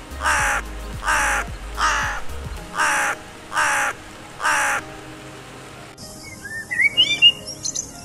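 Crow cawing six times in an even series of harsh calls, a little under a second apart. About six seconds in, the sound changes to quick, high bird chirps and whistled glides.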